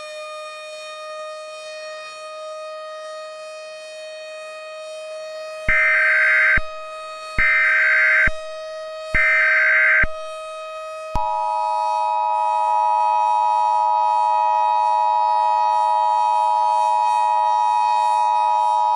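Emergency Alert System broadcast tones over a civil defense siren wailing steadily. Three loud, roughly one-second screeches of alert header data come about a second apart, starting about six seconds in. About eleven seconds in, the steady two-tone EAS attention signal begins and holds to the end.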